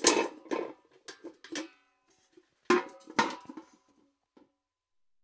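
Metal bucket clanking: a quick run of knocks that ring on, then a second run just under three seconds in, and one faint knock near the end.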